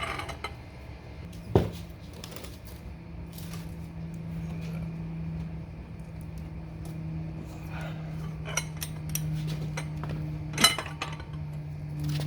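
A single sharp metallic crack about a second and a half in, typical of a seized 36 mm axle nut breaking loose under a long breaker bar, then a run of metal clinks and clicks from the socket, tools and nut near the end. A steady low hum sits underneath.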